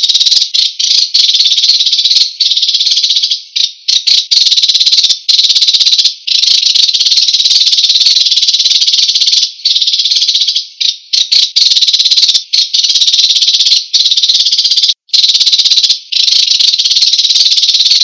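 Song of an American sparrow: a high, rapid buzzy trill running almost unbroken, with short, irregular breaks.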